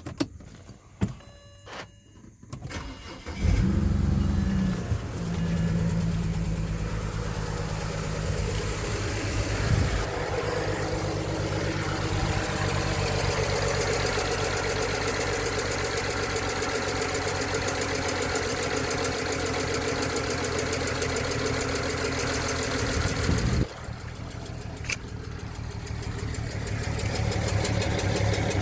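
A 2007 BMW 335i's twin-turbo inline-six starts about three seconds in, then idles with a really weird, uneven sound that seems to come from the exhaust side of the engine. The owner links it to a misfire code that points to an electrical fault in injector 6. The sound drops suddenly near the end, then builds back up.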